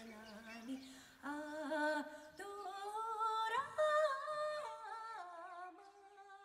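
A solo voice singing a slow, wordless, humming melody, unaccompanied, in long wavering notes that glide from one pitch to the next and fade away near the end.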